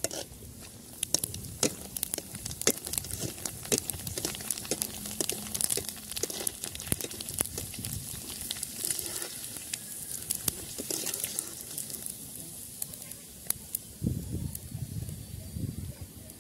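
Pani puri deep-frying in hot oil in an aluminium kadai: a steady sizzle with frequent sharp crackles and pops, thinning out in the last few seconds.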